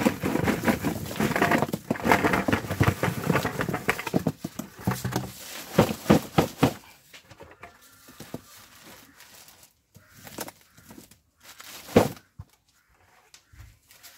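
Cucumbers poured from a plastic bucket, tumbling into a plastic-lined cardboard box: a dense clatter of knocks with rustling plastic for about seven seconds. After that come a few scattered knocks and one sharp knock about twelve seconds in.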